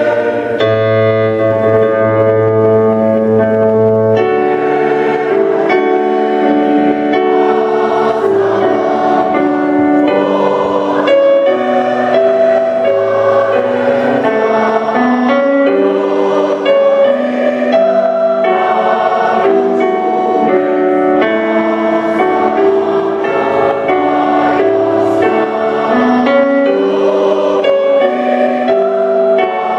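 Mixed choir of men's and women's voices singing in parts, holding chords that change every second or two.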